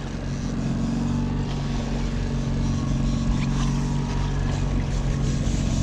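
Fishing boat's outboard motor running steadily with an even low hum.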